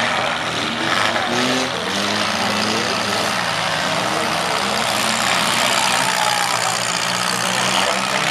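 Several compact demolition derby cars' engines running and revving at once. Their overlapping pitches rise and fall unevenly as the cars accelerate and back off.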